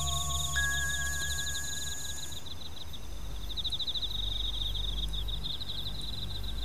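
Cricket-like chirping in fast repeated trills over a steady low drone, an eerie ambient bed. A few long held chime-like tones fade out about two seconds in.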